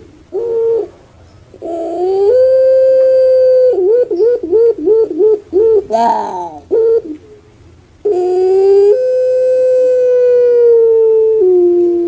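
Puter pelung dove (Barbary dove) calling. A short note comes first, then a long held coo. A quick run of about seven wavering pulses follows, and then a second long coo that steps down in pitch near the end.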